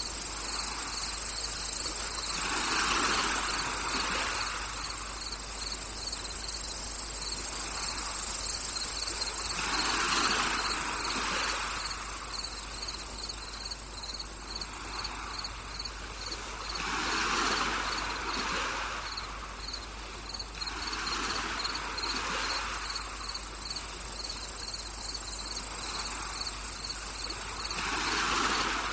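Crickets and other insects chirping steadily in a dense chorus, with a pulsing chirp repeating at an even pace. A soft rush of noise swells and fades every few seconds underneath.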